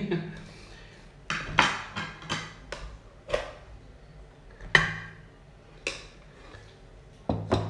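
A serving utensil knocking and scraping against an aluminium cooking pot as cooked rice is scooped out onto a plate. About ten sharp, irregular clanks, with a close pair near the end.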